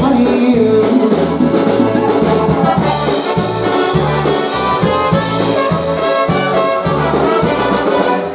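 Live polka band playing, with a steady, bouncing bass beat under the melody.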